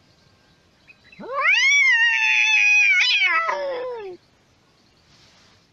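A cat yowling: one long drawn-out call that rises sharply at the start, holds for about two seconds, then slides down in pitch and stops.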